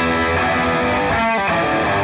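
Les Paul electric guitar with humbucking pickups, strummed through a Marshall tube combo amp on its crunch channel: overdriven chords that ring on, with a short scrape-like break a little past one second.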